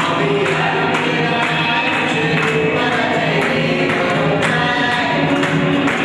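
Group singing: a chorus of voices singing a song together. A light percussion beat ticks along about twice a second.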